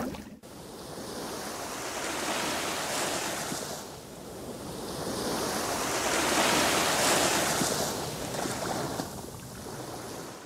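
Ocean waves washing in and receding, swelling twice to a peak and falling away between them.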